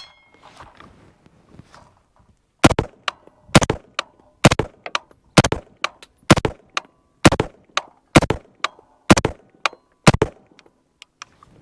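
Sterling Arms R18 .223 semi-automatic rifle firing nine single shots at a steady pace, about one a second.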